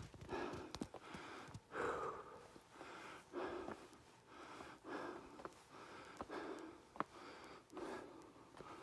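A person breathing hard while climbing stone steps, puffing in and out about once a second, with a few light clicks among the breaths.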